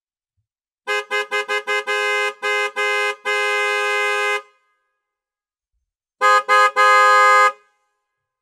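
Car horn honking: a quick run of short toots building into longer blasts, the last held for about a second. After a pause of about two seconds comes a second burst of two quick toots and one longer blast.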